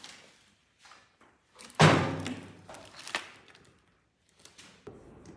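A heavy thud about two seconds in, as the DuroMax 212cc engine is set down on a steel diamond-plate table. It is followed by lighter knocks and clatter of parts being handled.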